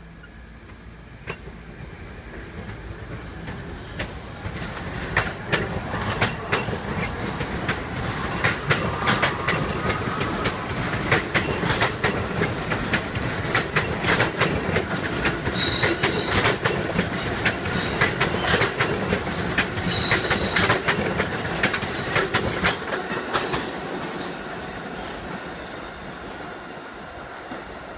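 An R68A subway train passing on the track alongside. It grows louder as it comes up, runs by with a dense train of wheel clicks over the rail joints and two brief high wheel squeals, then fades as it pulls away.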